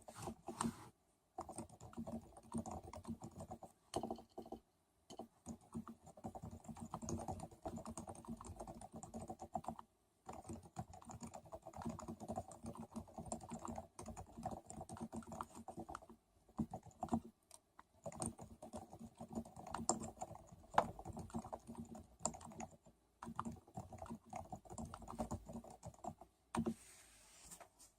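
Typing on a Ducky Realforce Silent Topre keyboard, an electrostatic capacitive board with silenced 30 g keys. The keystrokes come in rapid runs and sound dull and low, broken by short pauses every few seconds, and the typing stops shortly before the end.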